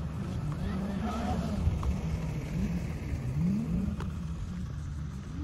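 Motorcycle engine running, its pitch rising and falling over and over as the throttle is opened and closed.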